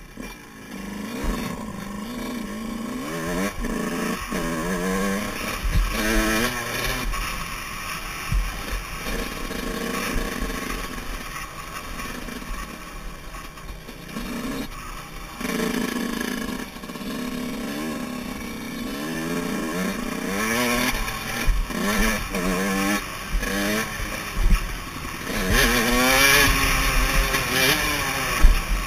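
Yamaha YZ125's two-stroke single-cylinder engine under riding load, its pitch rising and falling many times as the throttle is opened and closed through the track.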